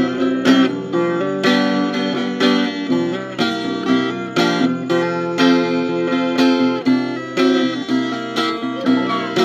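Acoustic guitar strummed in a steady rhythm, about two strums a second: an instrumental break in a country song.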